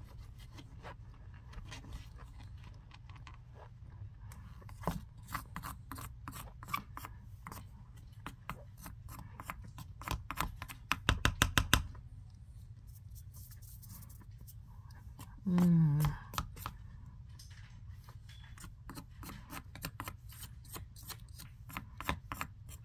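A spoon scraping and pressing into packed cornstarch in a plastic tub, giving short crisp crunches and squeaks, with a quick, louder run of about eight crunches around eleven seconds in. A brief falling hum-like voice sound comes near sixteen seconds.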